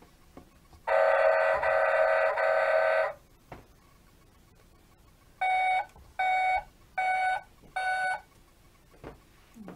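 Electronic sound effects from a Tonka Town Sanitation Vehicle toy garbage truck's speaker: one long buzzy electronic tone lasting about two seconds, then, after a short pause, four short beeps evenly spaced.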